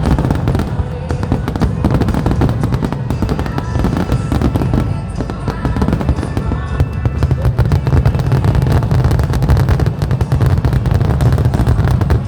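Fireworks going off in rapid, continuous succession, dense popping and crackling over deep booms, with music playing underneath.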